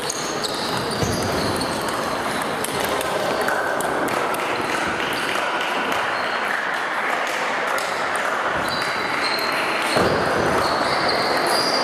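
Table tennis balls clicking off bats and tables, many quick hits from several tables in play, over a steady hall hubbub.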